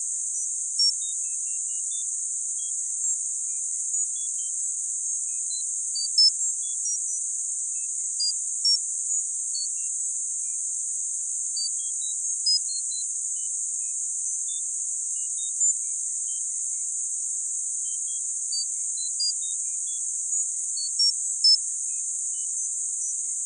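Tinnitus sound-therapy track: a steady high-pitched hiss held in a narrow band, with short high beeps at changing pitches scattered irregularly through it, a few every second.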